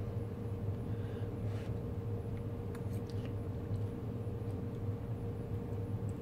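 A person eating instant noodles with a fork: quiet chewing with a few faint small clicks, over a steady low hum.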